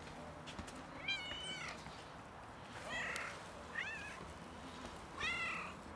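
A tabby-and-white domestic cat meowing four times, short calls that rise and fall in pitch.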